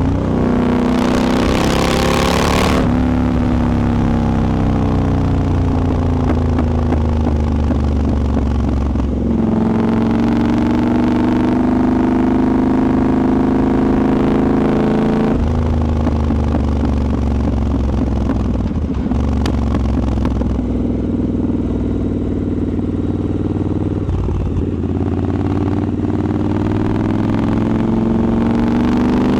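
Triumph Scrambler 1200 XE's parallel-twin engine running under way, recorded onboard. Its pitch rises and falls with the throttle and gear changes, with a lull about nine seconds in and another climb around the middle. Heavy wind rush is heard in the first few seconds.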